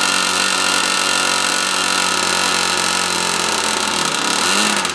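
O.S. .65 glow engine on a model airplane running at advanced throttle with its peristaltic fuel pump feeding it too rich. About three and a half seconds in its pitch sags, and it wavers near the end.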